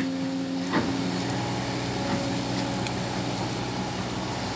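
Hydraulic excavator's diesel engine running steadily, with a light knock just under a second in.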